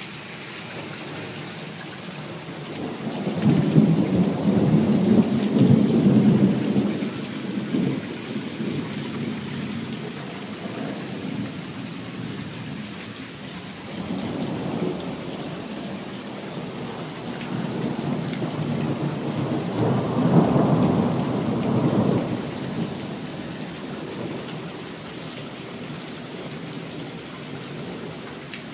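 Thunderstorm: steady rain falling, with two long rolls of thunder, the first starting about three seconds in and lasting several seconds, the second building from about halfway and loudest a little after.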